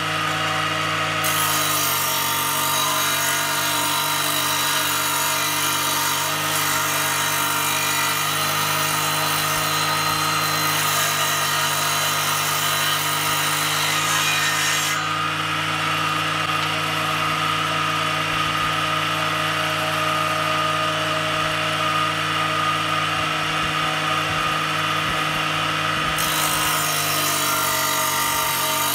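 Homemade belt-driven table saw running steadily while its blade rips a strip off the edge of a wooden board. The high cutting noise is heaviest from about a second in to about halfway through, eases while the saw runs lighter, and comes back near the end.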